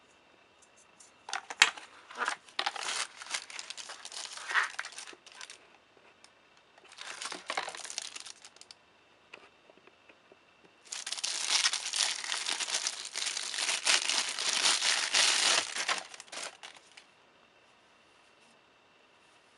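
Clear plastic bag crinkling and rustling in three bouts as a camera lens is unwrapped from it by hand; the last bout is the longest and loudest. A sharp tap about one and a half seconds in.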